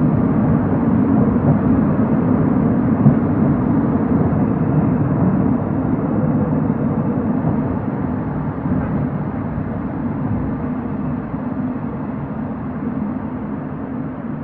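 Running noise of an old-type passenger coach train hauled by an EF70 electric locomotive: a dense, steady rumble of wheels on rail that grows gradually quieter through the stretch.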